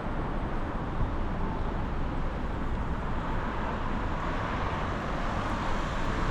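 Steady running noise of a vehicle in motion, a dense even rush with no distinct events, rising slightly in the middle.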